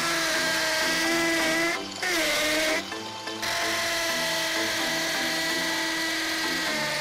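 Power drill running with a steady high whine. It stops about two seconds in, winds down and back up, and cuts out again briefly about three seconds in before running on. Background music with a repeating beat plays underneath.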